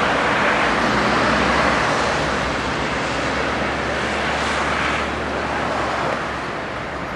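Steady road traffic noise from a multi-lane road, with a tram running toward the listener on its track. The overall noise eases off slightly over the last second or so.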